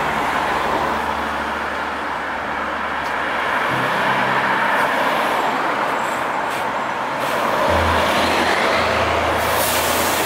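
Steady road and engine noise of a moving vehicle, with a slow bass line of background music whose low notes change every few seconds.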